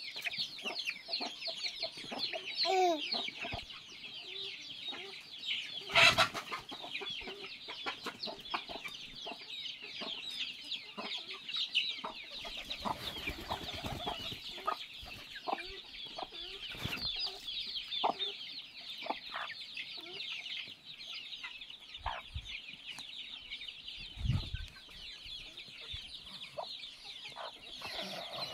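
Desi and Kaveri chickens clucking, over a dense, steady chorus of high chirping, with scattered clicks and one loud knock about six seconds in.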